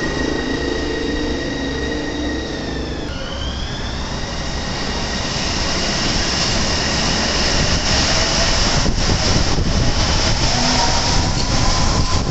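Port Liner rubber-tyred automated guideway train pulling out of a station. A steady electric tone turns into a rising whine about three seconds in as the train accelerates hard, and its running noise builds and grows louder.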